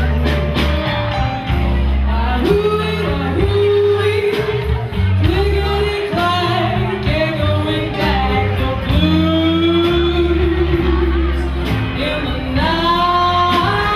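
A female vocalist singing live with a small band of electric guitar and drum kit, holding long notes twice.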